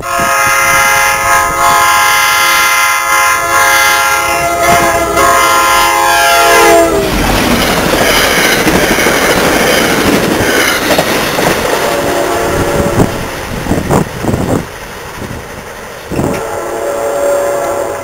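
New Jersey Transit GP40PH-2B locomotive 4213's air horn held as one long blast through the crossing. Its chord drops in pitch as the locomotive passes close by, about six and a half seconds in, then the horn stops and the passenger cars rush past with loud rumbling and wheel clatter.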